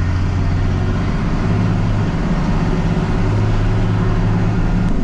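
Ford F-650 boom truck's engine running under way, heard from inside the cab: a steady low drone whose pitch steps up about a second and a half in.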